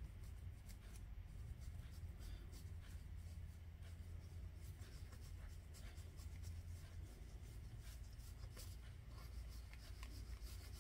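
Fingertips rubbing dried rubber masking fluid off watercolour-painted paper: faint, scattered scratchy rubbing as it lifts away, over a low steady hum.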